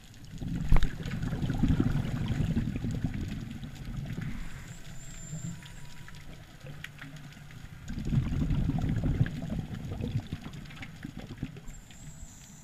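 Underwater sound picked up through a camera housing: two long stretches of low bubbling, gurgling rumble, the first about four seconds long and the second about two, over a quieter bed of faint scattered clicks.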